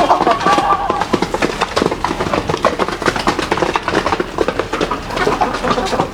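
Flock of chickens clucking, with short pitched calls over a dense, rapid patter of clicks and taps.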